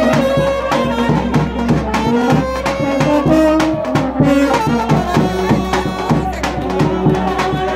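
Serbian trubači brass band playing live, with brass instruments carrying a melody over a steady drum beat.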